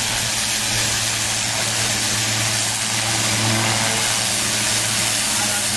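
A mobile crane's diesel engine running steadily, its low hum slightly stronger about halfway through, under a steady hiss.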